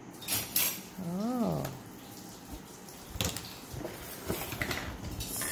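Plastic Lego pieces clicking and rattling as they are handled and pressed onto a build, with a few sharp clicks in the second half.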